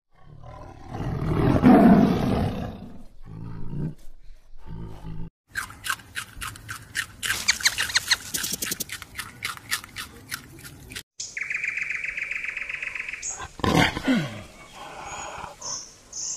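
A tiger growling and roaring, loudest about two seconds in, for the first five seconds. It gives way to a run of rapid clicks and chirps, then steady high chirping with a short, falling growl near the end.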